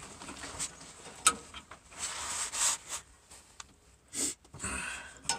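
Hand work on a fuel-line quick-connect fitting at a fuel filter: a plastic fuel-line disconnect tool scraping and rubbing against the fitting, with scattered clicks, one sharp click about a second in and a knock near the end, as the safety clip and connection are worked loose.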